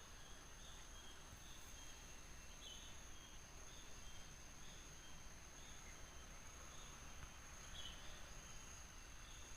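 Faint outdoor ambience: a steady high-pitched insect drone with soft, short chirps repeating about once a second. No dove cooing.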